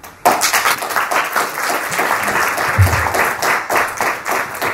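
Audience applauding: a dense patter of many hands clapping that starts suddenly a moment in. A brief low thump comes about three seconds in.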